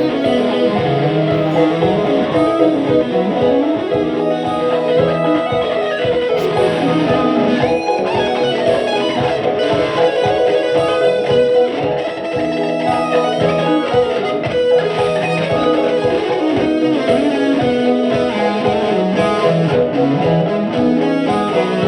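Electric guitar played solo through a Roland Jazz Chorus amplifier, a steady, unbroken stream of notes and chords.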